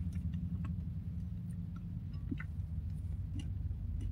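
Quiet chewing of a mouthful of cheesecake: faint, irregular small mouth clicks over a steady low hum.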